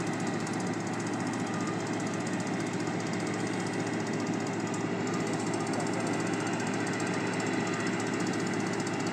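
An engine running steadily, with a fast, even pulse over a low hum.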